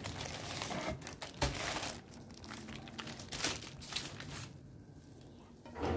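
Baking paper crinkling and rustling in irregular bursts as a baked sponge cake is lifted off it by hand. It settles to faint rustling near the end.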